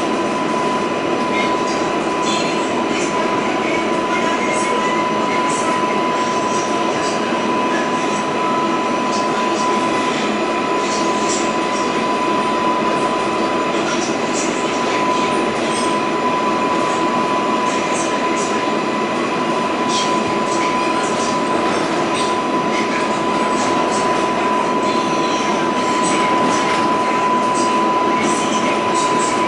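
An R188 subway car running at speed through a tunnel, heard from inside the car: a steady rush and rumble of wheels on rail, with a constant high tone and scattered light clicks.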